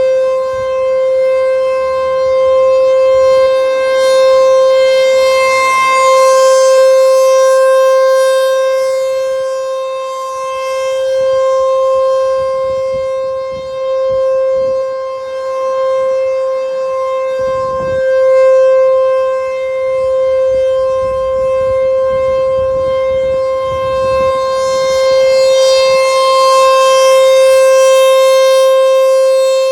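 ASC T-128 outdoor warning siren sounding a steady single-pitched alert tone during a siren test. Its loudness swells and fades slowly every several seconds as the siren rotates.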